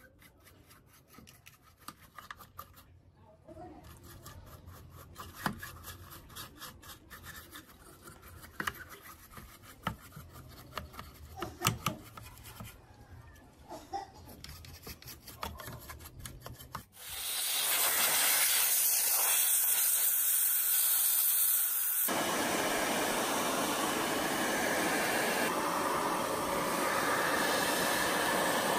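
A bristle brush scrubbing a dirty TV circuit board wet with cleaning liquid, in quick scratchy strokes. About 17 seconds in, an electric blower switches on and runs with a loud, steady rush of air, a thin whine in it for a few seconds.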